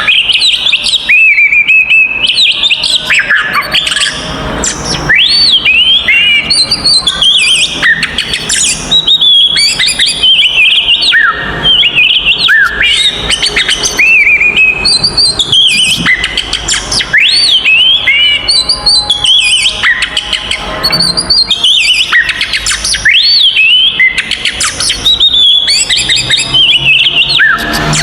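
Oriental magpie-robin (kacer) singing loudly and without pause: a rapid stream of varied whistled notes, quick up-and-down slurs, and harsher chattering phrases. This is the aggressive 'fighting' song (kacer tarung) of a bird in full voice.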